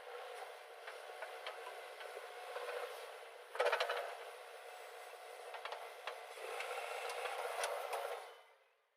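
Heavy machinery working, a steady mechanical noise with scattered scrapes and knocks; the loudest clank comes about three and a half seconds in. The sound fades out near the end.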